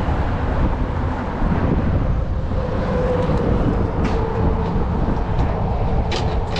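Wind buffeting the microphone in a steady low rumble, with a few light clicks and knocks from fishing rods being handled in a pickup's bed, about four seconds in and again near the end.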